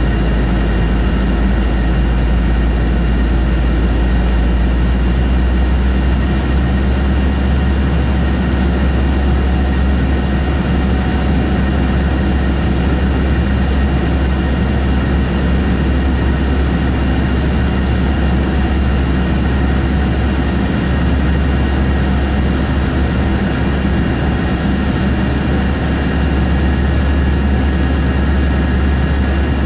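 Embraer E-190's General Electric CF34 turbofan engines running at climb power, heard inside the passenger cabin beside the engine: a loud, steady deep rumble with a few faint steady high whines over it.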